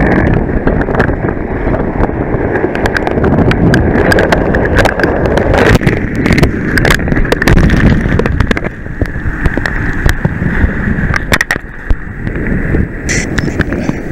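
Rushing, splashing water and wind buffeting the microphone of a camera mounted on a sea kayak as it is tossed about in surf, with many sharp splash clicks. The noise eases somewhat past the middle.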